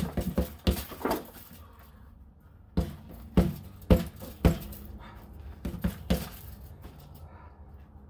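Mechanic-gloved fists punching a homemade bag of two bolted-together used tires. Each punch lands as a dull thud, in quick flurries: about four in the first second, four more around three to four and a half seconds in, and two near six seconds. Then the hitting stops.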